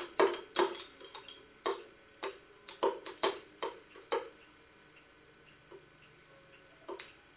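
Small metal spoon clinking and scraping inside a small glass jar as a toddler stirs and taps it, irregular clinks about three a second. The clinking stops about four seconds in, with one more sharp clink near the end.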